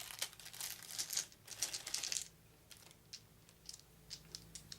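Small plastic board-game dice being handled, with rustling and clicking together for about two seconds, then a few light clicks as they are set down on the table one by one.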